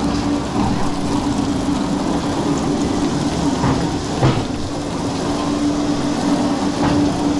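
Water-squirting amusement ride running: a steady machine hum under the hiss of water spray, with a single knock about four seconds in.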